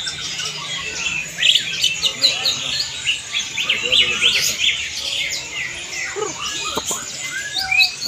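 Many caged songbirds chirping and calling at once, a dense chatter of short, overlapping high chirps and quick whistled sweeps.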